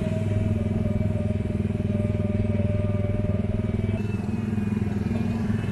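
Small petrol engine of an Autopia ride car running steadily, with a fast, even putter.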